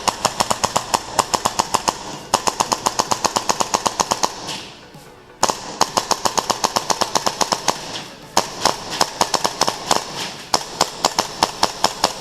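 Polarstar HPA-powered airsoft rifles firing in long full-auto strings of several shots a second, broken by short pauses.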